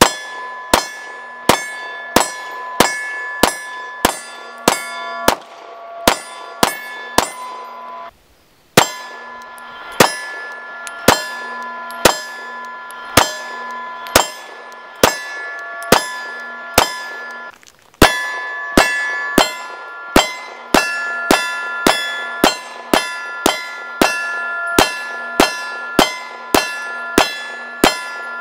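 Rapid strings of 9mm shots from a Glock 26 pistol, each followed by the metallic ringing of a steel target being hit. The shots come at about two a second at first and faster near the end, and the firing breaks off twice for a moment.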